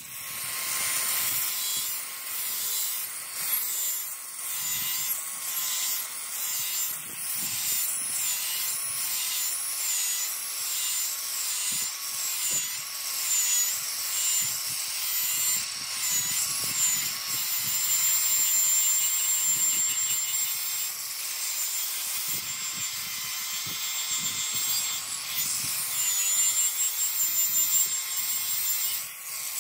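Electric angle grinder running and grinding rust off a steel axe head: a steady high whine with a gently wavering pitch over a gritty hiss.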